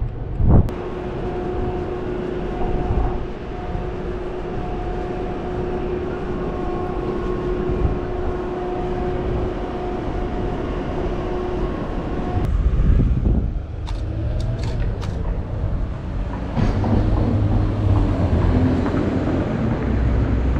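City-street ambience: a steady low rumble of traffic, with a steady humming machine tone for about the first half. A sharp click comes about half a second in, and a few faint clicks follow around two-thirds of the way through.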